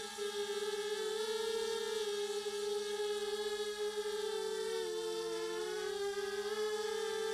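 HobbyKing FPV250 quadcopter's RCX 1804 2400KV brushless motors and propellers running in flight with a steady pitched hum. The pitch dips about five seconds in and comes back up about a second later as the throttle eases and is brought back.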